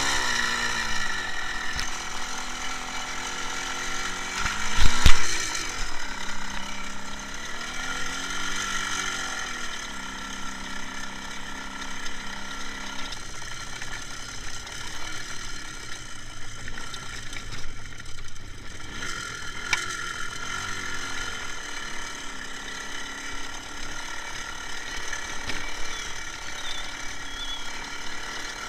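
IZh Jupiter 5 motorcycle's two-stroke twin engine running under way, its pitch rising and falling several times with throttle and gear changes, with a loud knock about five seconds in.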